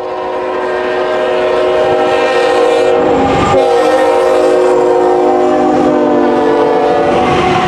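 Multi-chime air horn of a Union Pacific freight locomotive sounding one long blast as the train approaches and passes, its several notes held together as a chord. The chord swells over the first second and drops slightly in pitch about three and a half seconds in as the lead locomotive goes by, over the train's rumble.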